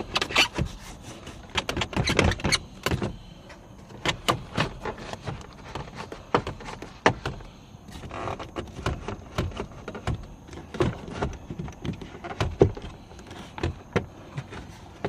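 Plastic center-console trim of a BMW 650i being handled and popped loose: scattered clicks, knocks and light rattles.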